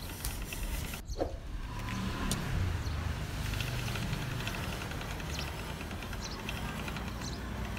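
Hand-cranked stainless-steel pasta machine turning, its cutter rollers slicing a sheet of egg-noodle dough into strands: a steady mechanical grinding with rapid light ticking.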